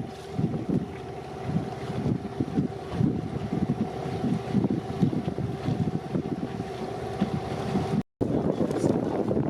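A boat's motor running with a steady hum while wind buffets the microphone. After a brief break about eight seconds in, the hum is gone and only the wind noise remains.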